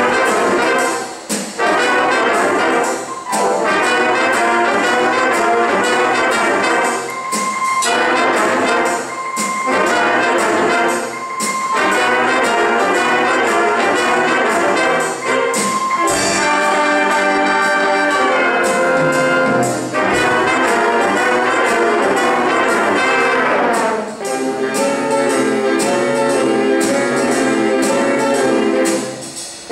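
A jazz big band playing: saxophones, trombones and trumpets together over piano and a drum kit, in loud ensemble phrases with a few brief breaks between them.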